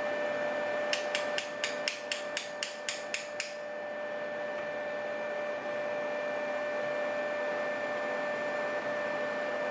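A quick run of about a dozen sharp metal clicks, roughly four a second, from a picked pin-tumbler lock being taken apart, over a steady high-pitched background hum.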